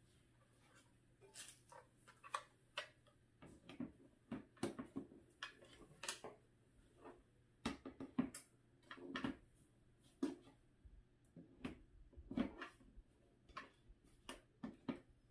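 Irregular light clicks and knocks of a smokeless electric grill's glass-and-plastic lid and parts being handled, lifted and set back down on the grill.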